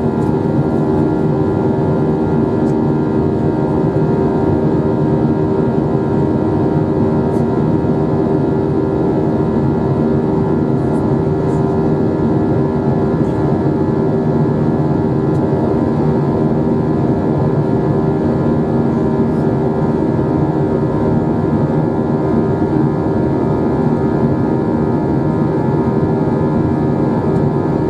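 Airbus A321 jet engines droning steadily, heard inside the passenger cabin: a loud, even hum made up of several steady tones, with no rise or fall in level.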